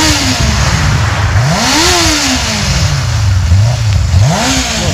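Benelli TRK 502's parallel-twin engine with its stock exhaust, blipped from idle. Twice the revs climb quickly and fall back to a low idle, about two and a half seconds apart.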